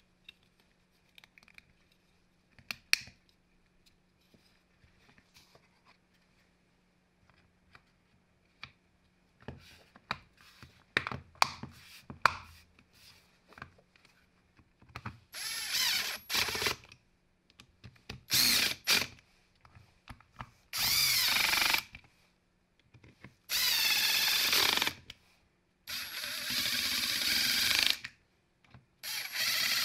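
Plastic tool-housing parts being fitted by hand, with light clicks and knocks. Then, about halfway through, a Milwaukee FUEL cordless driver runs in six short bursts of one to two seconds each, driving the screws that close a hammer drill's plastic housing.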